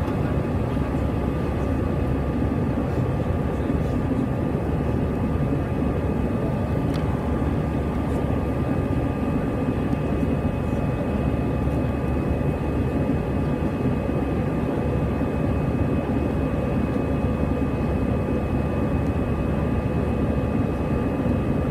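Airbus A320 jet engines and airflow heard inside the cabin during the climb after takeoff: a steady, unchanging roar with a couple of thin steady whining tones over it.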